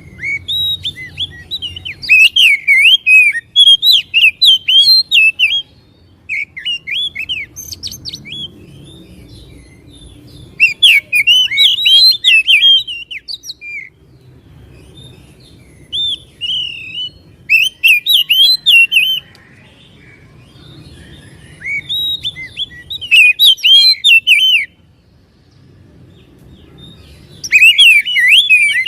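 Oriental magpie-robin (kacer) singing: bursts of loud, rapidly varied whistled phrases, each lasting one to three seconds, repeated with short pauses between them.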